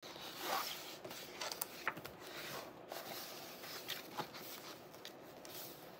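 Soft rustling and small taps of a picture book's paper pages being handled and turned by a small child's hands, with a few brief clicks scattered through.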